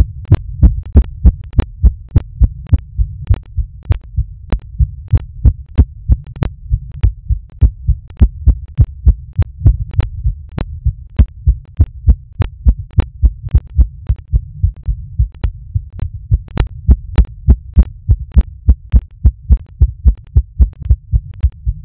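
Human heartbeat picked up through a smartphone's microphone by a heartbeat app, amplified and low-pitched. It is a steady, even beat at about 95 to 106 beats a minute, quickening slightly toward the end, with paired beats in each cycle.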